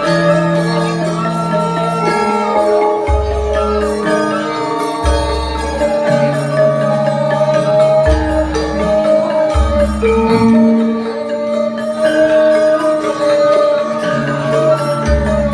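Javanese gamelan ensemble playing a lancaran in pelog tuning: bronze metallophones ring out sustained melody notes over deep gong strokes that come every one to three seconds.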